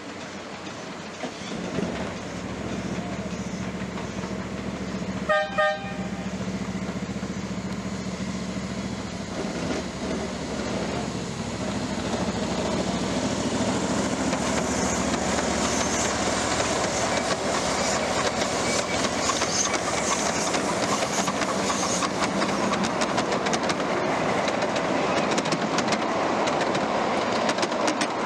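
7.5-inch gauge miniature railroad train running, with two short chord-like toots of its signal about five seconds in. From about ten seconds in, its wheels clatter and click over the track and grow louder as it comes closer.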